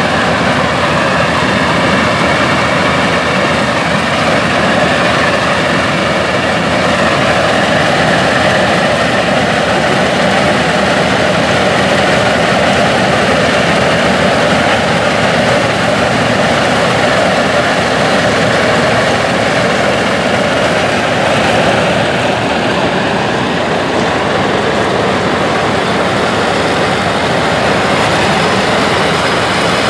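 Vintage farm tractors running steadily under load while working mounted corn pickers through standing corn: first a John Deere pulling a wagon, then, after a change near the end, a Farmall.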